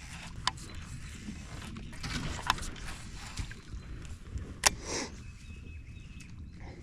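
Handling noises in a small aluminum jon boat: a few sharp knocks and clicks over a low steady rumble, the loudest knock near the end followed by a short falling swish.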